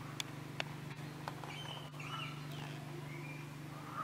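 Outdoor forest ambience: short, high bird chirps scattered over a steady low hum, with a couple of sharp clicks in the first second.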